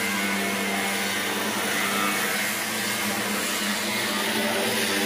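Angle grinder with a cutoff wheel cutting into the steel shell of a propane tank, running at a steady pitch and level with the hiss of the wheel biting metal.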